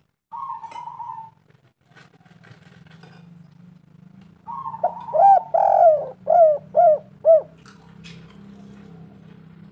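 Spotted dove cooing. One short coo comes just after the start. About four and a half seconds in, a longer phrase follows, ending in a run of five short, loud notes. A faint low hum runs underneath.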